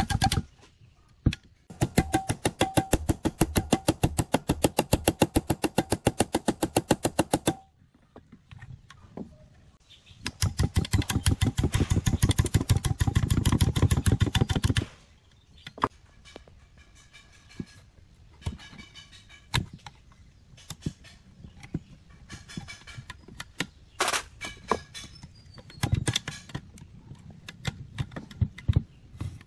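Rapid, evenly spaced metallic knocking in two runs of several seconds, then scattered light clicks and taps of metal tools and chainsaw parts being handled.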